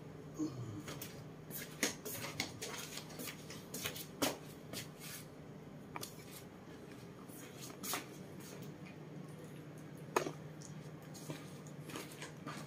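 Sporadic soft clicks and rustles of bedding and slipper steps on a tiled floor as a man moves away and a pig-tailed macaque shifts on the bed, over a steady low hum.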